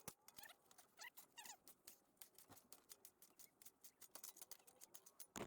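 Faint, irregular metallic clicking from a hand tool working at a stubborn bolt on the car's front end, with a few brief squeaks about a second in.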